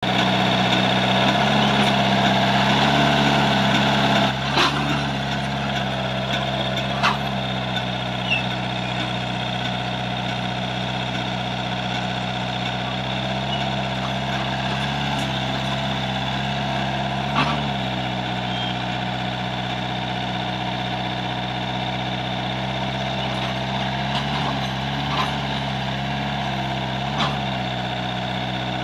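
Kubota U50 mini excavator's V2203 four-cylinder diesel engine running steadily as the machine travels on its tracks, with a few short clunks. It is a little louder for the first four seconds, then settles.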